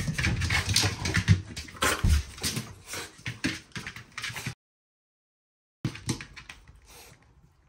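Excited Shiba Inu jumping and scrabbling on a wooden floor, claws clattering, amid a dense run of clicks and knocks. Past the middle it breaks off in about a second of dead silence, then softer, sparser sounds follow.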